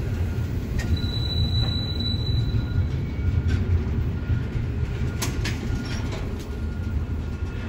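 Double-stack intermodal freight train of container-laden well cars rolling past: a steady low rumble of wheels on rail, with scattered sharp clicks and clanks from wheels and couplers and a faint thin wheel squeal underneath.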